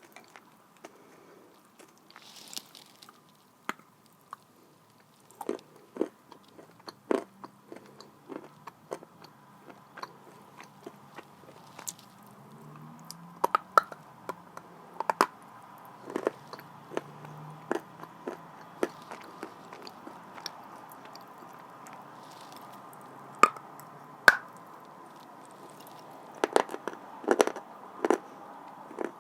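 Close-up biting and chewing of dried blue Uzbek clay: irregular sharp crunches with softer chewing between, the loudest two crunches about two-thirds through and a quick run of them near the end.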